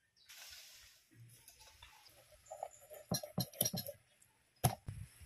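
Rustling, then a series of sharp knocks and taps as cooking ingredients (bottles, a jar, chicken in a plastic bag) are handled on a table, over a steady high insect chirr.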